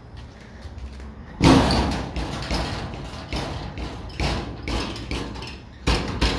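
A toilet cubicle door banging and rattling against its lock, starting suddenly about a second and a half in with a loud thump, then a run of uneven knocks and rattles, and another loud bang near the end.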